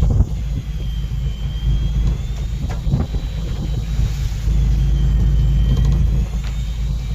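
Fishing boat's engine running with a steady low rumble, a faint high whine wavering in pitch above it, and a few brief knocks. The rumble swells a little just past the middle.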